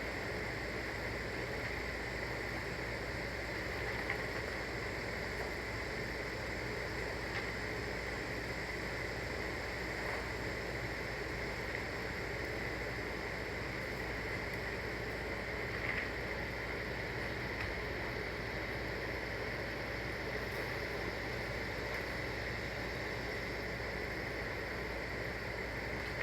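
Chainsaw engine running steadily at high revs under load through a long cut on an Alaskan chainsaw mill.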